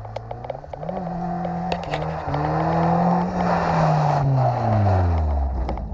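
Car engine revving up about a second in, held high, then dropping off near the end, with tyre noise on snow.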